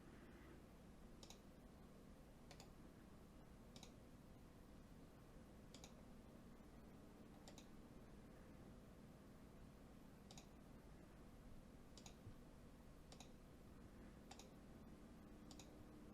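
Faint, sharp clicks, about a dozen at irregular intervals of one to two seconds, over a low steady hum.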